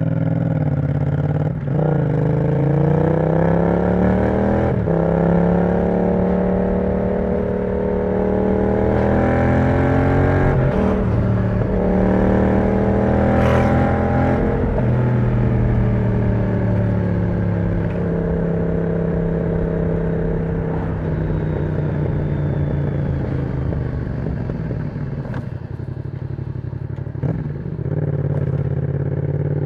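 Yamaha MT-07's 689 cc parallel-twin engine through an aftermarket exhaust with the dB killer removed, under way on the road. It pulls up through the gears with short breaks at the shifts, climbs to its highest pitch about halfway, then drops off and runs at a lower, steadier pitch, picking up again near the end.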